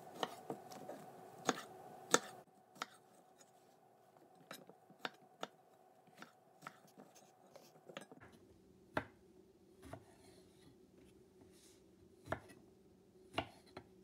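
Chef's knife slicing fresh okra pods on a wooden cutting board: irregular sharp knocks of the blade meeting the board, roughly one every half second to a second.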